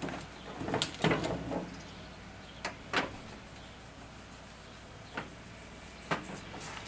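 A few scattered light knocks and clicks as dipped taper candles with wire hangers are handled and set down on a metal baking tray.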